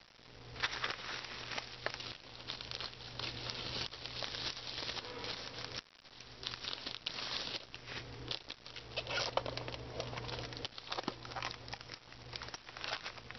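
Bubble wrap crinkling and rustling as it is handled and pulled away, with irregular crackles and a brief pause about six seconds in. A low steady hum runs underneath.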